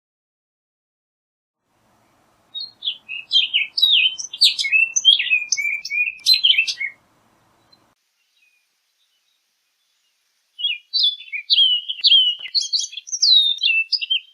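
Orchard oriole singing: two songs of rapid, jumbled whistled notes that slur up and down, the second beginning a few seconds after the first ends.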